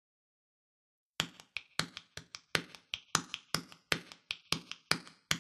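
Hand percussion playing a steady rhythm of sharp strikes, with louder and softer beats in turn, starting about a second in: the percussion introduction to a folk song.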